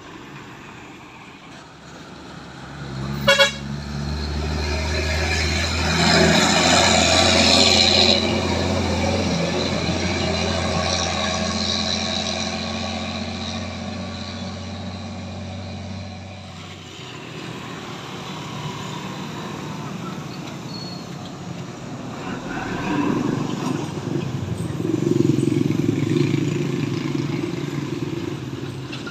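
Traffic at a road bend: a short vehicle horn toot about three seconds in, then a heavy truck's diesel engine running loud and steady as it passes, loudest about six to eight seconds in and fading after the middle. Near the end, more engine noise rises as motorcycles and another truck come through.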